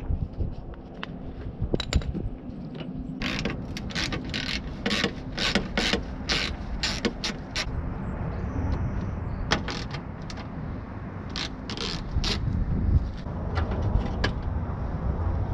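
Hand ratchet wrench clicking in regular strokes, about two a second, as the fender bolts are worked loose, with a second run of clicks later on.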